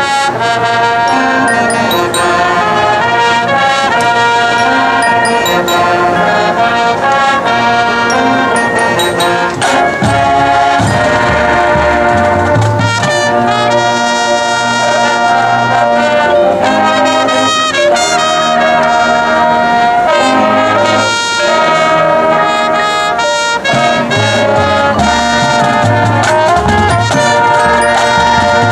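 High school marching band playing loudly, its brass section carrying sustained chords that change every second or two.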